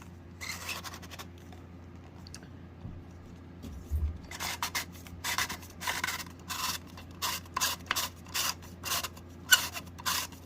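Probe 601 smoke alarm's housing being twisted and rubbed by hand while trying to unscrew it apart: a run of short scratching rubs, two or three a second, starting about four seconds in after a brief rub and a pause.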